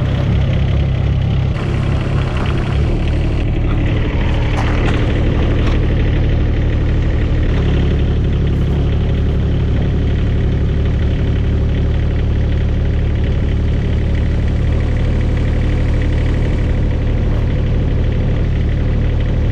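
A Rippa mini excavator's Kubota diesel engine running steadily, its pitch shifting slightly about a second and a half in and again around eight seconds, as the machine turns its track around to bring the final drive's plugs into position.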